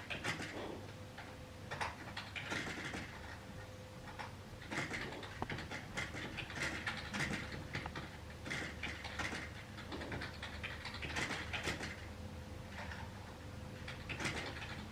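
A 9-month-old Boxer dog breathing and sniffing through its nose right at the microphone: short noisy puffs, irregular, every second or two.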